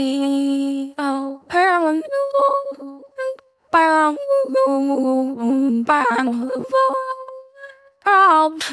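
Music with a high vocal melody whose notes slide up and down, broken by short pauses.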